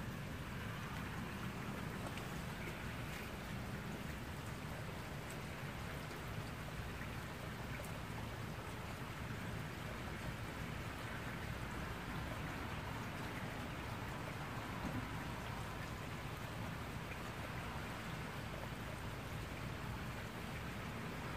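Steady rain falling on wet pavement and shrubs, with a constant low rumble underneath.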